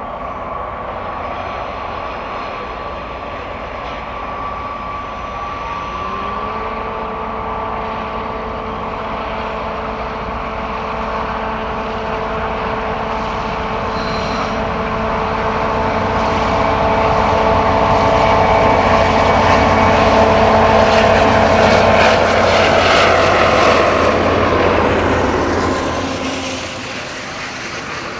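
Class 241 'Ludmilla' diesel locomotives (16-cylinder Kolomna engines) working at full power under a heavy loaded freight train. The engine note steps up about six seconds in and grows louder with a hissing snarl as they draw near. The tones drop in pitch and the sound falls away as they pass.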